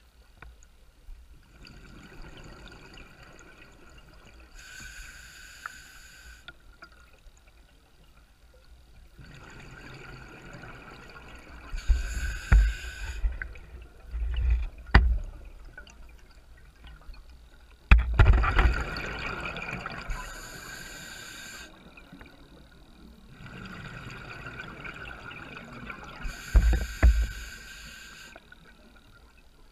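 A scuba diver breathing through a regulator underwater: about four breaths, each a hissing inhale followed by a loud bubbling, rumbling rush of exhaled bubbles.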